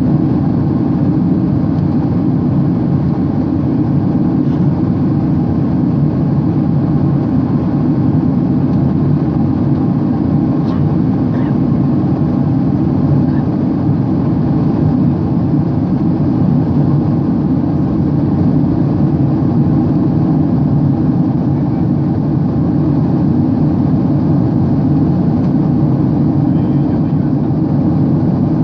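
Steady jet airliner cabin noise during the climb after takeoff: the engines and airflow make an even, low drone heard from a window seat.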